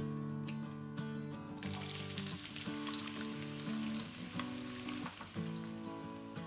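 Chopped red onions sizzling and frying in hot oil in a wok. The sizzle starts suddenly about a second and a half in, as the onions go into the pan, over acoustic guitar music.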